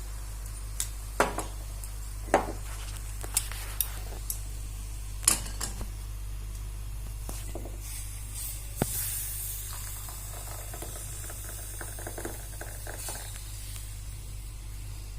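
Metal utensils knock and clink against a pan a few times. From about nine seconds in comes a soft hiss of liquid as the hot herbal decoction is strained off.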